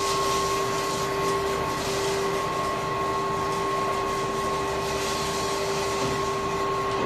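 Steady hum of running factory machinery: two constant pitched tones over an even mechanical rumble, one of the tones fading out about two seconds in.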